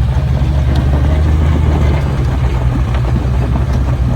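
Off-road vehicle engine running while driving on a trail, a steady low rumble with a few light knocks.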